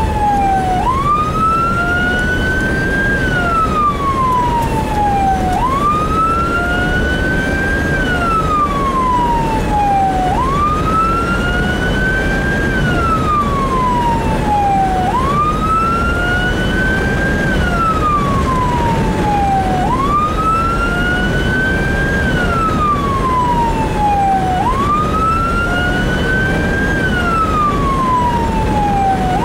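Fire department response vehicle's siren on a slow wail, heard from inside the cab, its pitch rising quickly and falling away again about every five seconds. Road and engine noise from the moving vehicle run underneath.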